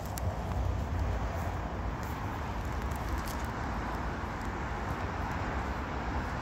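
Steady outdoor street noise: a continuous hum of distant traffic with a low rumble of wind on the microphone.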